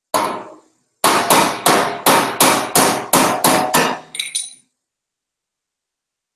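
Body hammer striking the sheet-metal rear body panel of a Daihatsu Hijet micro truck: one blow, then a run of about ten quick ringing blows at roughly three a second, ending in a few lighter taps.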